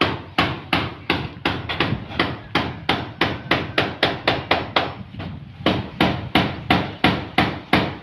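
A hammer driving nails through corrugated galvanized iron roofing sheets into the timber roof frame: steady blows about three a second, with a short pause about five seconds in.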